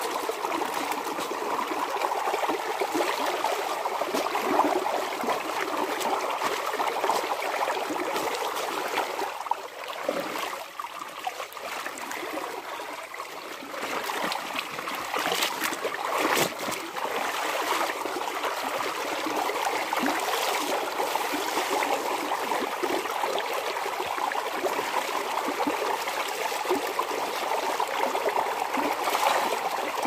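Water splashing and trickling as clothes are scrubbed and wrung out by hand in plastic buckets. It goes quieter for a few seconds about a third of the way in.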